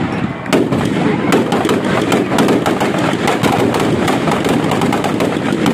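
Firecrackers packed into a burning Dussehra effigy going off in a dense, irregular crackle, with frequent sharper bangs over it.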